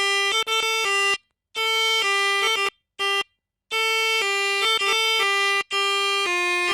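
Melodica (pianika) playing a 'telolet' bus-horn tune: reedy held notes switching between a few pitches in quick phrases, broken by short pauses about a second in, around three seconds in and near the end.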